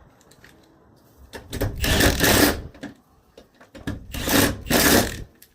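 A tool working on the truck's door hinge in two harsh, rasping bursts, each about a second and a half long.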